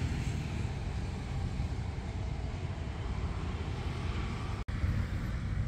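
GEK diesel-electric locomotive idling while stopped, a steady low rumble. The sound drops out for an instant about four and a half seconds in.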